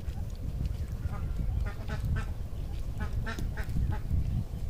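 Short animal calls, several in quick succession, over a steady low rumble.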